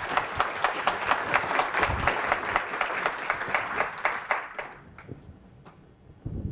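Audience applauding at the end of a lecture, the clapping dying away about five seconds in to a few last claps. There is a brief low thump near the end.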